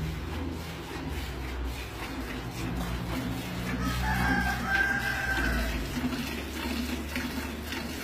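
Rooster crowing once, about four seconds in and lasting a second and a half, over a low steady hum. Beneath it, a Holstein cow is milked by hand, with milk squirting into a pail.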